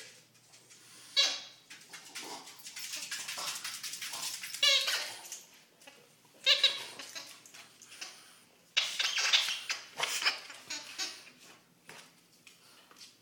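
A French bulldog giving several short whiny grunts and whimpers, a few seconds apart, while mouthing and tugging at a toy football.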